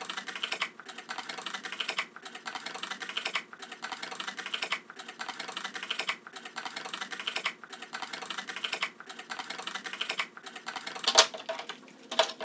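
Scissors cutting around the top of a paperboard drink carton: rapid crunching snips in runs, with a short pause about every second and a half as the hand reopens or repositions. A sharper, louder click about 11 seconds in.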